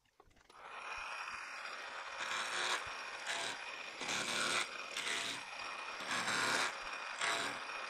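Metal lathe starting up about half a second in, then running with a faint steady whine while a hand-fed tool takes a rasping cut that swells in regular pulses roughly every three-quarters of a second: an interrupted cut across the corners of a block held in a four-jaw chuck.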